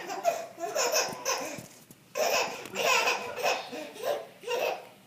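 A young child laughing hard in several bouts with short pauses between.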